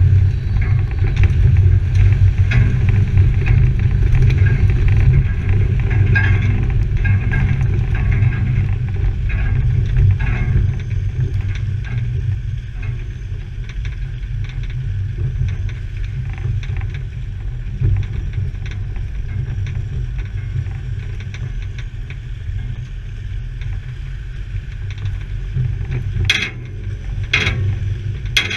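A 4x4 engine running at low speed while the vehicle rolls over a rough, rutted track, with a steady low rumble and the rattle and knock of the body and tyres over stones. The rattling is busiest in the first ten seconds and eases after, and two sharp knocks come near the end.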